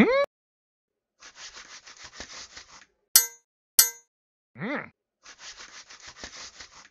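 Cartoon sound effects for an animated Viking: a run of quick rattling, shuffling steps, two sharp metallic clangs about half a second apart, a short grunt that rises and falls in pitch, then another run of rattling steps.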